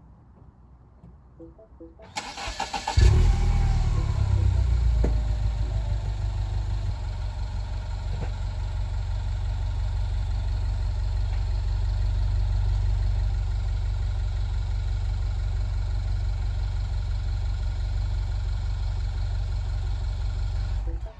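2012 Mini Cooper Clubman S's turbocharged four-cylinder engine is cranked by the starter about two seconds in, catches with a brief flare, then settles to a steady idle. The sound cuts off suddenly near the end.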